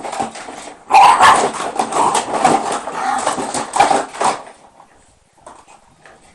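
A Shiba Inu barking in a loud, dense burst that starts about a second in and lasts about three seconds.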